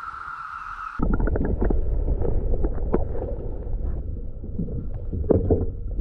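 Steady drone of a periodical cicada chorus. About a second in it gives way to louder wind rumbling on the microphone, with water splashing and knocking around a kayak, the cicada drone faint underneath.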